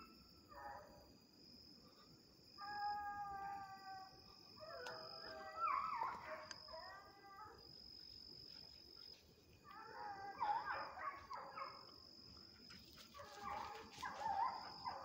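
Hunting dogs baying and howling in four drawn-out bouts a few seconds apart, the drawn-out baying of dogs on the trail of game.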